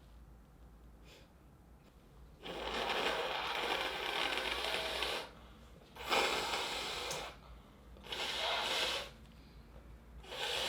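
A woman breathing out noisily after sneezing, four hissing breaths with no voice in them. The first starts about two and a half seconds in and lasts nearly three seconds; the next three are shorter and spaced about two seconds apart.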